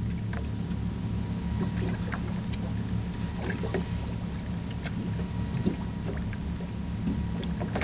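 A steady low hum aboard a small fishing boat, with light clicks and taps scattered through it as the line is let out from a baitcasting reel to drop a jigging spoon back to the bottom.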